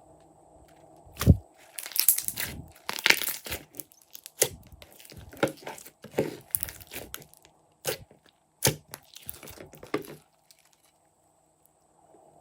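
Slime being squished, pressed and folded by hand: a run of irregular sticky crackles, clicks and pops, with one heavier squelch about a second in. It stops about ten seconds in.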